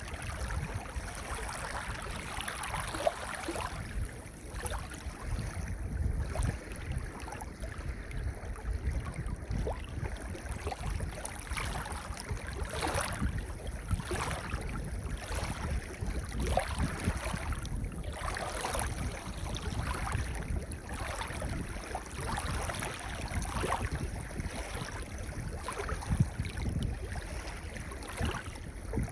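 Gentle ocean waves washing onto a pebble beach: a steady surf with a low rumble and many short crackles through it.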